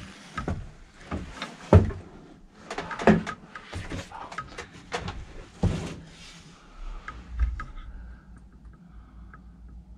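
Footsteps and knocks on old, loose wooden floorboards and planks: a series of sharp, irregular wooden knocks over the first six seconds, then quieter.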